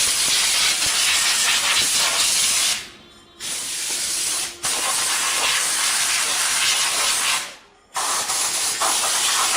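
Compressed air blowing from an air blow gun, cleaning off the newly fitted wheel bearing hub: a loud steady hiss in four blasts, broken by short pauses about three, four and a half, and seven and a half seconds in.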